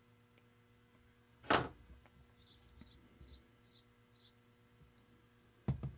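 A single short thump about one and a half seconds in, over quiet room tone, followed by a few faint high chirps.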